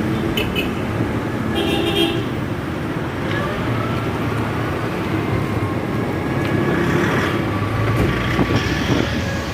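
Road and wind noise from riding a three-wheeled e-bike through traffic, with short horn toots about half a second and two seconds in.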